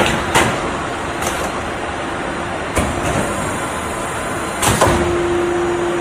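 Automatic HVAC duct-making line running: steady machine noise broken by several sharp metal clanks as the steel sheet is handled. A steady hum drops out just after the start and comes back about two-thirds of the way through.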